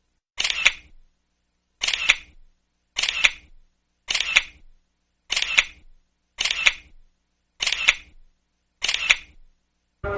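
Camera shutter click sound effect, repeated eight times a little over a second apart with silence in between, each click a quick double snap.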